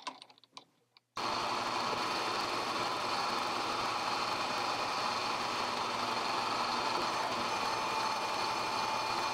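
Grizzly G0750G metal lathe running steadily with its chuck spinning a steel bar, a constant mechanical whir with a few steady tones in it. It comes in abruptly about a second in, after a few faint clicks.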